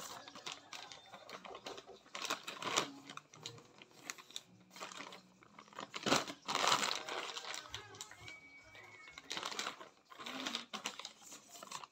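Plastic packaging crinkling and rustling as it is handled, in irregular bursts, loudest about six to seven seconds in.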